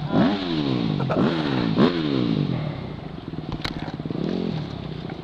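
Dirt bike engine revved in repeated throttle blips, each a quick rise in pitch followed by a slower fall. There are about four blips in the first two and a half seconds, then the engine runs lower and more unevenly with one more brief rise near the end.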